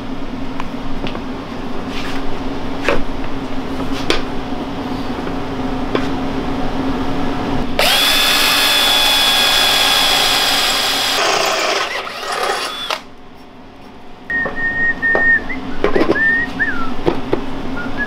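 Cordless drill boring into a mini bike's metal frame, running at a steady high speed for about three seconds and then in a brief shorter burst.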